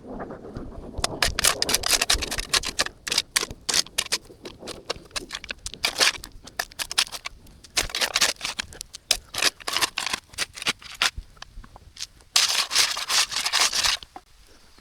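Shovel working in overgrown, grassy dirt: a run of irregular crunching scrapes and cracks, with a longer continuous scrape near the end.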